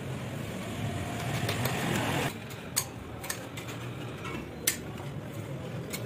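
A rushing noise that builds for about two seconds and stops abruptly. It is followed by three sharp taps from hand tools (hammer and wire snips) working a small wooden frame with wire mesh.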